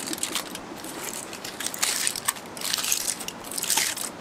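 Aluminium foil crinkling and rustling in several bursts as hands tear and peel open a foil wrapper.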